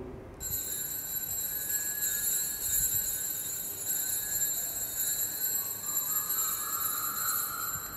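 Altar bells ringing continuously at the elevation of the consecrated host, a steady high ringing that stops abruptly near the end. The ringing marks the moment the host is raised for the people to see.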